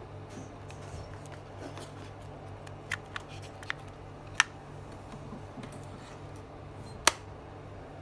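Samsung Galaxy Buds Live plastic charging case being handled, with a few sharp clicks from its hinged lid around three to four and a half seconds in and a louder single click about seven seconds in.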